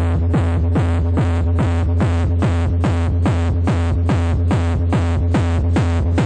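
Electronic dance music with a fast, steady beat and heavy bass, played loud through a car sound system of six Selenium Tornado speakers and three Stetsom Vulcan amplifiers.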